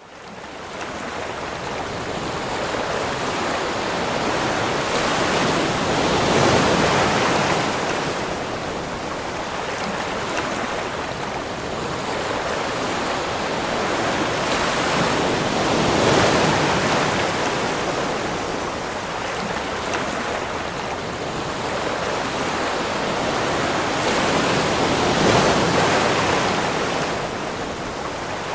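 Surf breaking on a rocky shore: a steady rush of sea water that swells louder about every nine to ten seconds as larger waves crash in.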